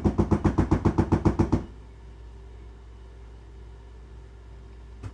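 Rapid, even knocking of a utensil against a mixing bowl of frosting, about eight knocks a second, stopping about a second and a half in. A steady low hum continues underneath.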